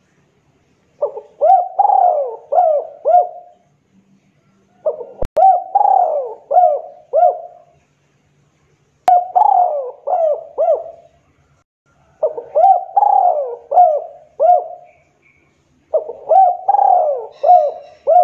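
Spotted dove (tekukur) cooing: five song phrases a few seconds apart, each a quick run of four or five notes. Two faint clicks fall between the phrases.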